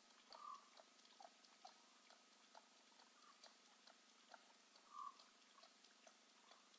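Lioness and cubs lapping water, heard faintly as irregular soft wet clicks, a few a second, over a low steady hum.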